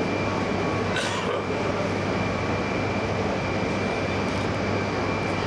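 Stationary 200 series Shinkansen train humming steadily at the platform, a low hum under a constant high-pitched whine. There is a brief hiss about a second in.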